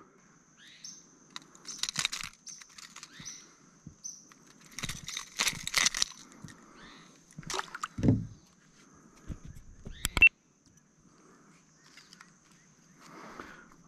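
Handling noise from the caught fish and the propeller lure's treble hooks: scattered rustles, knocks and light metallic clicks, with a sharp click about ten seconds in. A faint steady high-pitched whine runs underneath.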